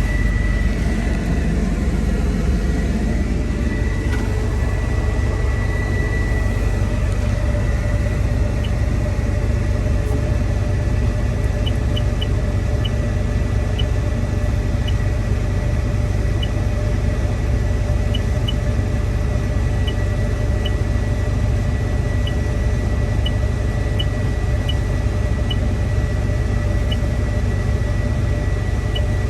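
Cat M316C wheeled excavator's Tier 3 diesel engine idling steadily, heard from inside the cab: a constant low rumble with a steady high whine over it. Faint light ticks come at irregular intervals through the second half.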